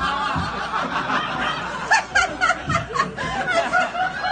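Audience laughing, with a loud run of rapid, rhythmic laughs from about two seconds in.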